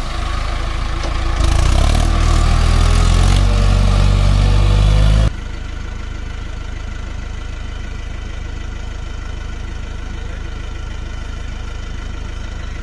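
Mahindra Arjun 555 DI tractor's four-cylinder diesel engine revving under load in mud, its pitch rising over a few seconds. About five seconds in the sound drops suddenly to a quieter, steady engine idle.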